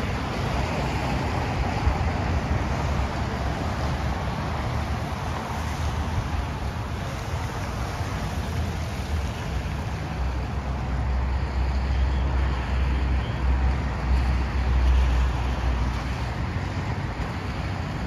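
Steady hiss of traffic on wet roads, with wind rumbling unevenly on the microphone and gusting hardest about twelve to fifteen seconds in.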